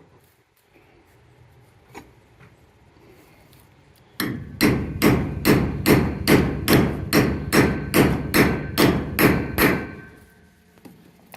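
A hammer striking a steel gate hinge bolt to drive it into a drilled hole in a wooden post: about fifteen sharp, evenly spaced blows, roughly three a second, starting about four seconds in and stopping near the end.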